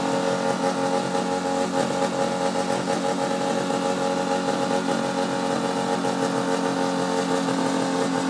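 Small engine of a Terra Tiger buggy idling steadily at an even pitch.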